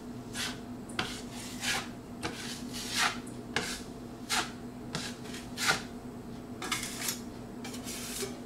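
Steel putty knife spreading and scraping drywall joint compound (mud) over a wall patch and against a wide taping knife, in short scraping strokes about one to two a second. A faint steady hum runs underneath.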